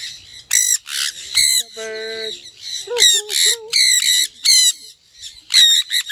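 Sun conures screeching: a rapid series of short, shrill, harsh calls, with a lower drawn-out sound about two seconds in.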